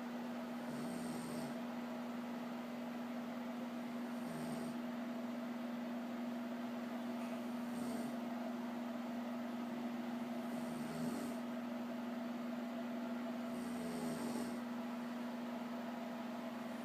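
A person snoring, about five snores spaced roughly three seconds apart, over a steady hum.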